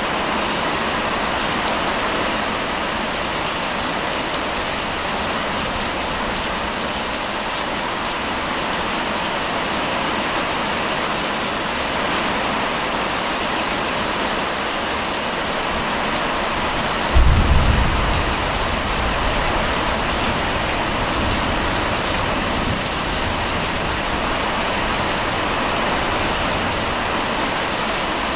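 Heavy rain pouring steadily. About seventeen seconds in, a sudden low clap of thunder, the loudest moment, dies away over a few seconds.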